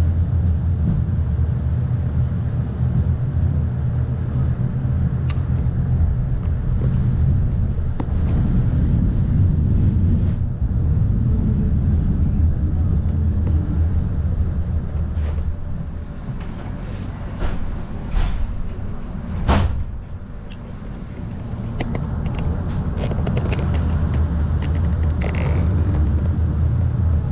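Tram running along street track, heard from inside the car: a steady low rumble and hum with scattered clicks and one sharp knock about 19 seconds in, after which it briefly runs quieter.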